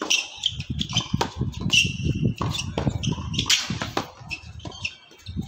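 Tennis rally on a hard court: sharp knocks of racket strings hitting the ball and the ball bouncing, mixed with short high squeaks.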